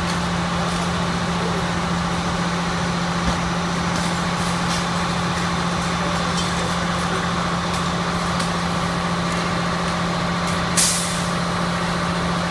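A fire engine's engine runs steadily with a constant low hum. About eleven seconds in there is a short, sharp burst of hissing air.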